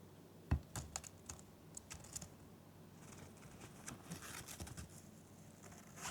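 Small parakeets' claws and beaks on the carrier and perch: a run of light, sharp clicks and taps, then soft scratching and rustling as the birds move about.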